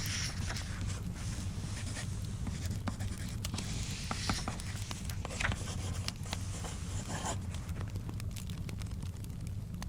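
Library study ambience: a fire crackling with scattered small pops over a steady low rumble, with several bouts of scratchy paper sounds, such as pages turning and pencil writing, the longest about five seconds in.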